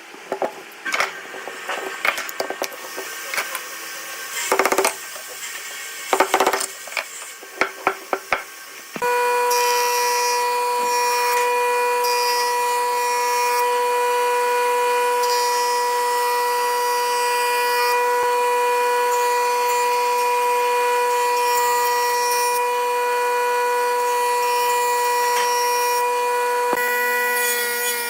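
Scattered knocks and clicks of wood and tools being handled, then about nine seconds in a wood lathe starts running with a steady whine and the rubbing scrape of wood being worked on it.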